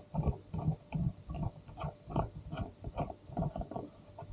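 A black accessory mount being fitted by hand to a motorcycle's frame: a quick, irregular run of short knocks, clicks and rubbing as its parts are pushed, turned and bent into place.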